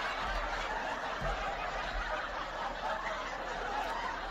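Faint, muffled laughter with low murmuring.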